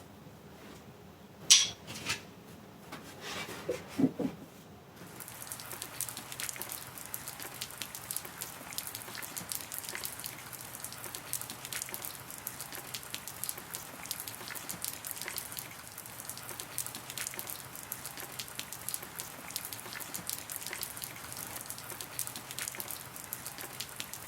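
Rain falling, a dense steady patter of many small drop ticks that starts suddenly about five seconds in. Before it, a sharp click a second and a half in and a few softer knocks.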